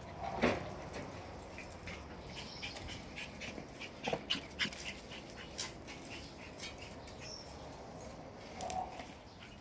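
Shiba Inu puppies moving about, with scattered light clicks and scuffs of paws on tile and gravel, and a couple of brief, soft puppy whimpers near the start and near the end.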